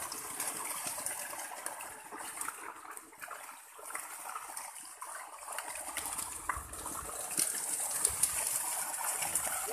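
Pond water splashing and sloshing irregularly as a seine net is dragged through a shallow, muddy fish pond.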